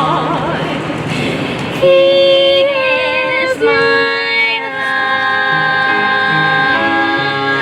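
A live show-tune performance: a woman singing with wide vibrato over band accompaniment. From about two seconds in it moves into long held notes and sustained chords.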